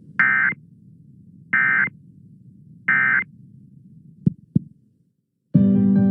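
Emergency Alert System SAME end-of-message data bursts: three short, identical warbling digital tones about a second and a half apart, signalling the end of the broadcast tornado warning. Two faint clicks follow, then near the end a short, loud, low buzz.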